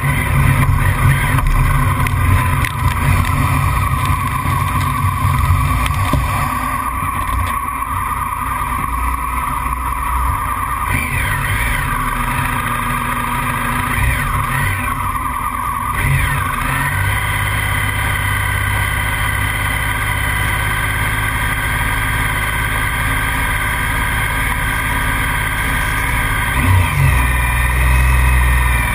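Racing motorcycle engines on a starting grid: the onboard bike's engine rises and falls in revs about halfway through, then settles to a steady idle among the other bikes, with a short throttle blip near the end.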